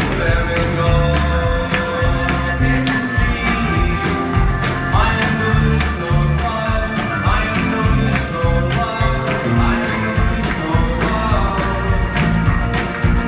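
Rock band playing live: a loud, full mix of guitars and drums on a steady beat.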